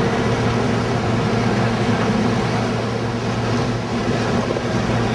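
Steady city traffic noise: a continuous low engine hum over a wash of street rumble.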